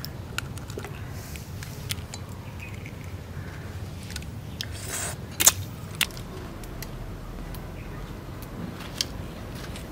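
Eggshell of a boiled duck egg being peeled by hand: small scattered crackles and clicks of shell, with a few sharper clicks, the loudest about five and a half seconds in.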